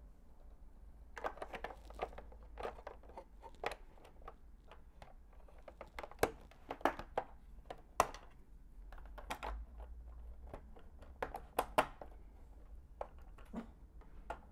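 Plastic LEGO bricks clicking and clattering irregularly as hands press pieces onto a model and pull them off, with a few sharper snaps among the lighter clicks.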